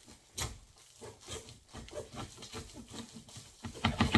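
A blunt pocket knife sawing and scraping through packing tape and plastic wrap on a cardboard box: irregular scratching and crinkling, with a sharp click about half a second in and a louder run of quick scrapes near the end.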